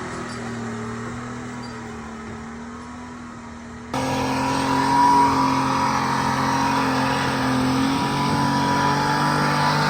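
Tree Farmer forwarder's diesel engine running steadily under work. About four seconds in the sound turns suddenly louder, with a high whine added on top.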